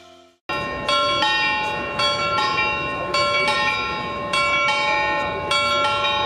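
Church bells ringing in a repeating pattern of paired strikes, one pair about every second. Background music fades out just before the bells start.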